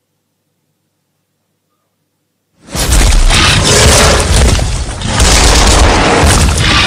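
Sound effect of a giant gorilla slamming into the ground: a loud crashing boom with deep rumble and debris noise. It starts suddenly about two and a half seconds in and dips briefly a little past halfway before surging again.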